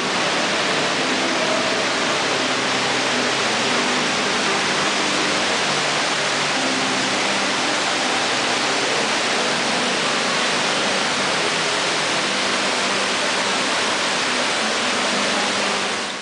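Tall indoor waterfall pouring down a wall into a pool below, a steady even rush of falling water.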